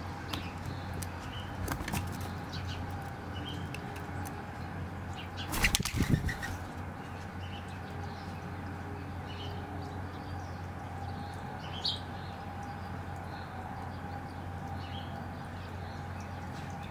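A mourning dove's wings flapping hard in a short burst about six seconds in as it takes off from the feeder.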